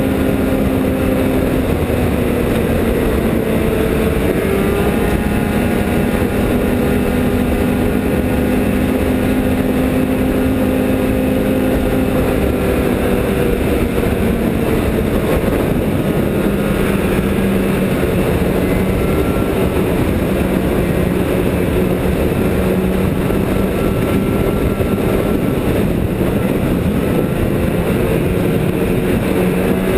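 Snowmobile engine running steadily at cruising speed, heard from on board the sled, over a constant rushing noise. The engine's pitch drifts up and down slightly a few times as the throttle changes.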